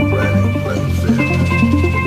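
Background music: an electronic track with a bass line stepping in a repeating pattern, sustained synth tones and a steady beat.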